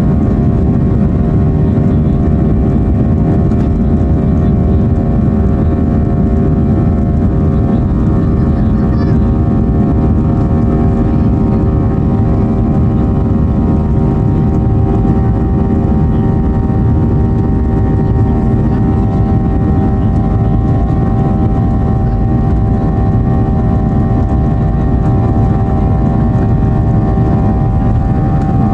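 Boeing 737-800's CFM56-7B turbofan engines running at low, steady thrust while the aircraft taxis, heard from inside the cabin: a constant low rumble with a steady whine of several fixed tones over it.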